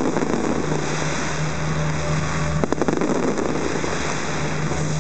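Aerial fireworks bursting and crackling: a dense, continuous crackling hiss of falling sparks with a few sharp bangs, the clearest about two and a half seconds in.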